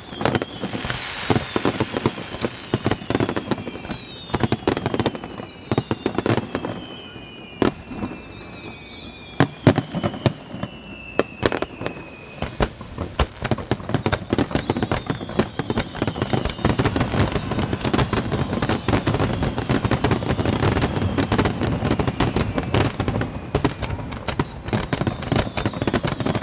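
Aerial fireworks display: repeated sharp bangs of shells bursting, with several falling whistles in the first half. From about midway the bangs come thick and fast in a dense, continuous crackling barrage.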